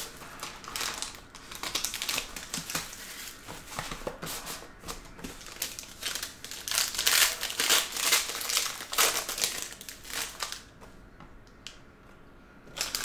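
Plastic wrap and foil packaging crinkling and rustling as a sealed trading-card box is opened and its cards handled, loudest a little past the middle and dying down near the end.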